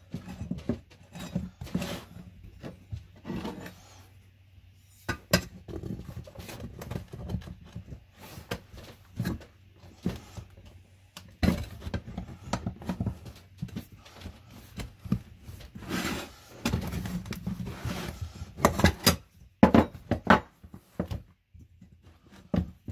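Irregular knocks, clunks and rubbing as a small pneumatic tire is worked by hand onto its metal wheel rim.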